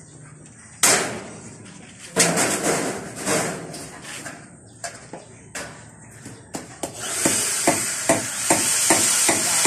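Knocks, clatter and scraping as a window frame is pushed and shifted into place in a concrete wall opening. From about seven seconds in, a steady hiss with regular ticks about three times a second joins in.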